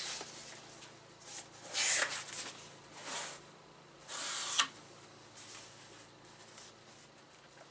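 Handling noise as a circuit board is picked up and turned over: several short bursts of rustling and rubbing, with a sharp click about four and a half seconds in.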